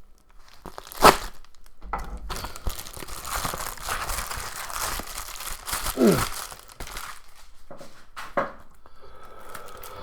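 Plastic packaging being handled, crinkling and rustling, with a sharp click about a second in and another about eight seconds in. A brief sound falls in pitch about six seconds in.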